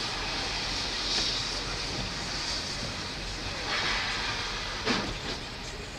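Steady traffic and road noise of a wet city street heard from inside a car through a dashcam microphone, with a constant hiss; a brief sharper noise comes about five seconds in.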